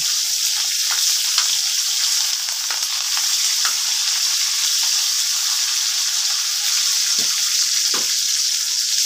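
Chopped red onions sizzling steadily in hot oil in a metal wok, stirred with a metal spoon, with light scrapes and clicks of the spoon against the pan and a couple of louder clicks near the end.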